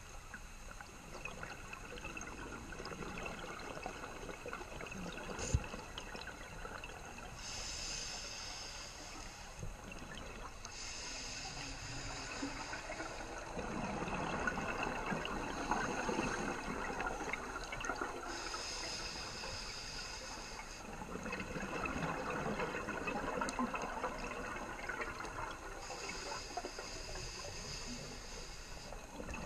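Scuba regulator breathing heard underwater: a hiss on each inhalation, then a gurgling rush of exhaled bubbles, repeating with each slow breath. A single sharp click about five and a half seconds in.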